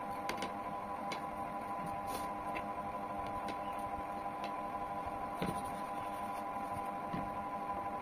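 Light, irregular clicks and scrapes of a kitchen knife cutting the skin off a ripe mango, over a steady hum.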